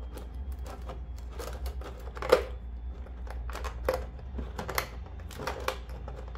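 Clear plastic blister tray and the plastic bag around a Nendoroid figure crinkling and crackling as hands work the figure loose, with one louder crack about two seconds in.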